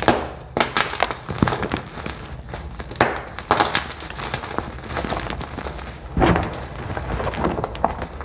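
Crunchy dyed blocks cracking and crumbling as they are crushed in bare hands, in irregular crunches, with the loudest about three and six seconds in.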